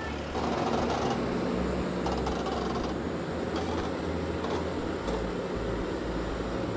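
Bobcat T770 tracked skid steer's diesel engine running steadily, a little louder from about half a second in, with a few light clicks and knocks.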